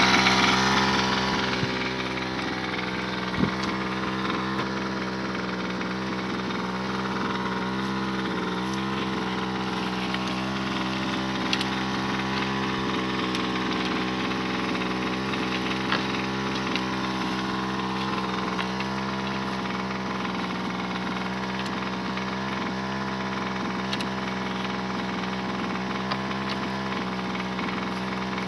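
Small engine-driven water pump running steadily at constant speed, forcing water down the hose into a pipe being jetted into the ground to sink a well. A few faint knocks sound over it.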